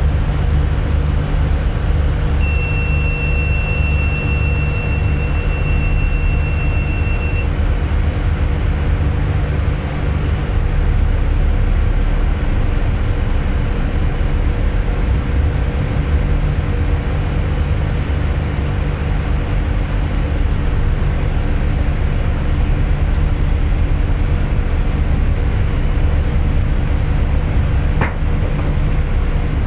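A passenger boat's engines running steadily under way, a deep, even drone heard from inside the enclosed cabin. A thin, steady high tone sounds for about five seconds a couple of seconds in, and there is a single click near the end.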